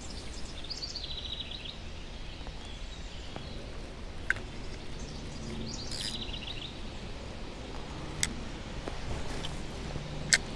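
A bird calls twice, each call a high note sliding down into a short, rapid buzzy trill, over steady low outdoor background noise. Three sharp clicks fall about four, eight and ten seconds in, the last the loudest.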